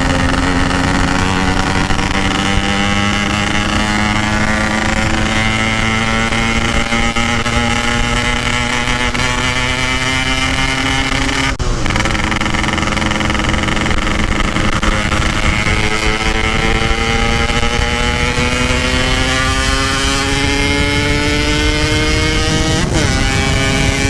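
Yamaha RX-King 135cc two-stroke single-cylinder motorcycle running under way with its standard-style packing exhaust, the engine note climbing slowly as it pulls. About halfway there is a brief break and a small drop in pitch, as at an upshift, and then it climbs again.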